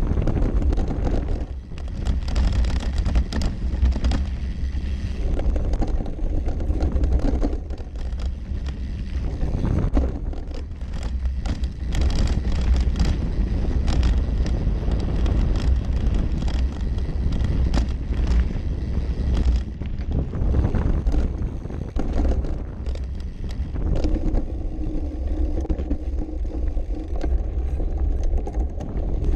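Trek Session downhill mountain bike ridden fast down a dirt trail, heard from a camera on its frame: wind buffeting the microphone, tyres rolling over dirt, and frequent clattering knocks from the chain and frame over bumps.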